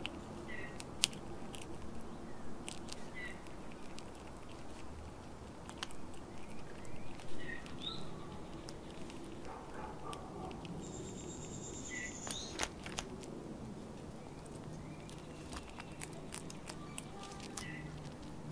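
Eastern gray squirrel cracking and chewing bird seed and nuts, a run of small sharp crunches and clicks at irregular intervals.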